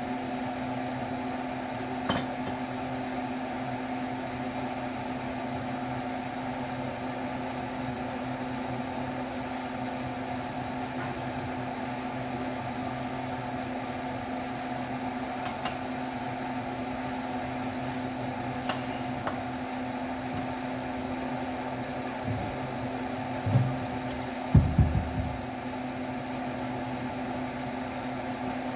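Steady electric fan hum with a constant low tone. A few light clicks, then a cluster of dull knocks near the end as tongs and a plate are handled on the counter.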